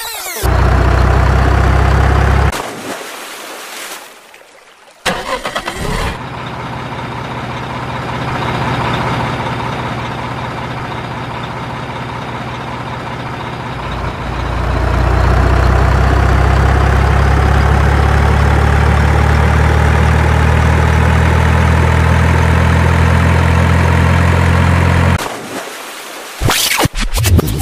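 Truck engine sound running with a deep steady hum, loud at the start, fading a few seconds in, then swelling again from about fourteen seconds in with its pitch slowly rising; a few sharp sounds near the end.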